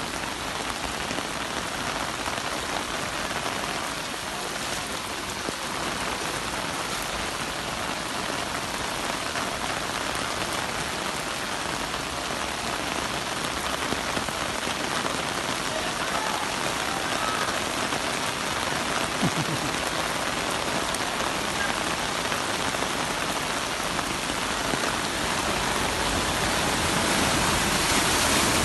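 Heavy rain falling steadily on surfaces, a continuous even hiss that grows slightly louder near the end.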